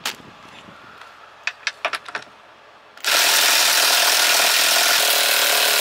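A few light clicks, then about three seconds in a power tool starts running steadily and loudly, driving a 14 mm socket on a long extension to undo the seat belt's tight upper anchor bolt.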